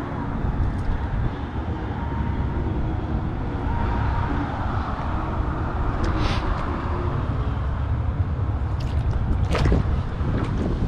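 Steady low wind rumble on the microphone, with a faint distant engine-like drone in the first few seconds. A few short sharp splashes come close together near the end.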